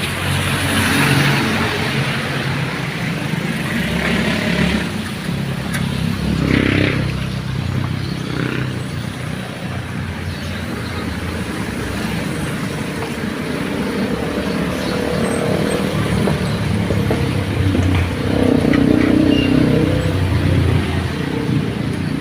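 Motor vehicle engines running, a continuous low rumble that swells and fades as vehicles pass.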